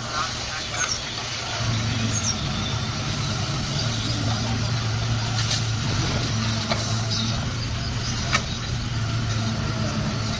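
Backhoe loader's diesel engine running steadily, its drone getting louder about a second and a half in. A couple of sharp clicks or knocks stand out over it.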